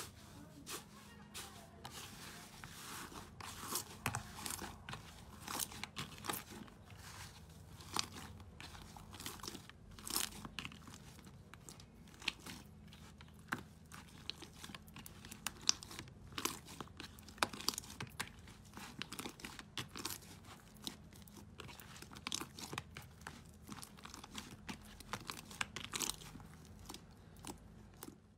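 Hands poking, pressing and kneading thick slime, making a dense run of irregular crunchy crackles and pops.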